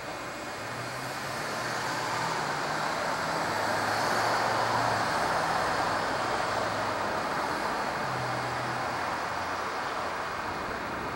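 City street traffic: a passing vehicle's tyre and engine noise swells to a peak about four seconds in and then fades, over a low engine hum.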